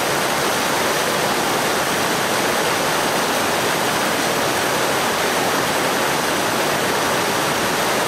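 River water rushing steadily over rocks and low stone weirs: a continuous, even rush of white-water rapids.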